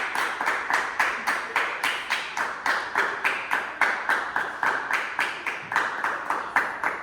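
Hands clapping at a steady, even pace, about four to five claps a second: applause.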